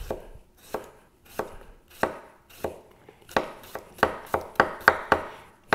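A 160 mm high-carbon steel chef's knife slicing a sweet potato into rounds on a wooden cutting board, each stroke ending in a sharp knock of the blade on the board. There are about a dozen strokes, evenly spaced at first and coming faster after about halfway.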